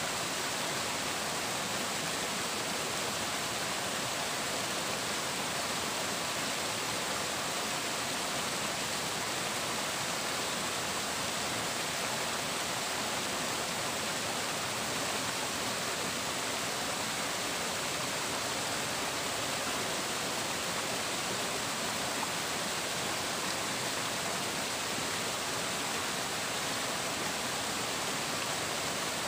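Flowing water, a steady, unbroken rush.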